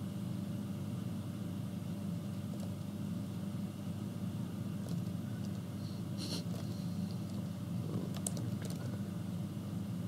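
Steady low hum in the background, with a few computer keyboard keystrokes about six seconds in and again around eight to nine seconds in as a command is typed.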